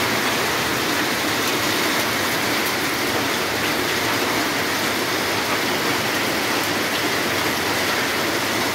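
Heavy hailstorm with rain: a dense, steady clatter of hailstones and rain pelting onto roofs and concrete.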